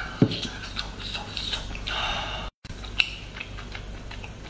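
Close mouth sounds of chewing a steamed garlic scallop: soft wet clicks and smacks, with a sharper click just after the start and a brief break in the sound just past halfway.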